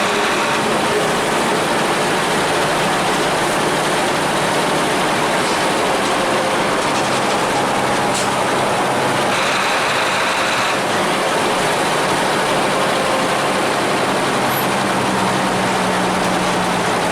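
Diesel engine of a Hino AK-3 bus running steadily under load, a loud continuous roar with a low engine hum, along with road and cabin noise. A short high-pitched tone sounds for about a second and a half, around nine seconds in.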